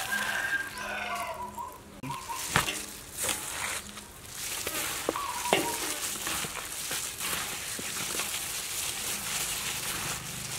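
Hands in plastic gloves mixing and squeezing shredded cabbage through wet chili kimchi paste: a steady squishing and rustling. A farmyard animal calls briefly near the start and again about five seconds in.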